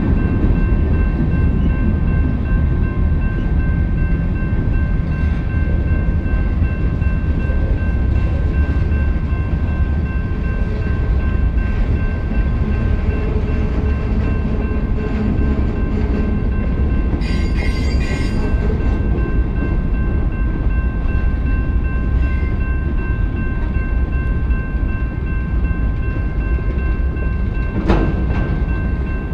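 Freight cars rolling past at speed: a heavy steady rumble and clatter of wheels on rail, with a grade-crossing bell ringing steadily over it. A brief high squeal comes a little past the middle, and a single sharp bang near the end.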